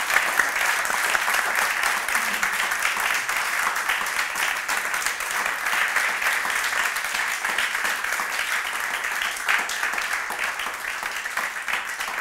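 Audience applauding, a dense steady clatter of many hands clapping that eases off a little near the end.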